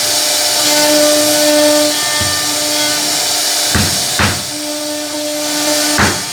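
CNC router spindle cutting wood, a steady high hiss with a low hum that comes and goes. A few sharp knocks sound from about two seconds in, closer together near the end.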